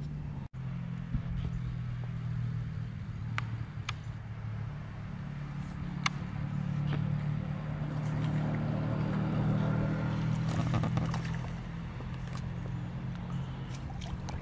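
A steady low hum runs throughout, with a few sharp clicks. Around eight to eleven seconds in, louder splashing comes as a hooked bream fights at the water's surface.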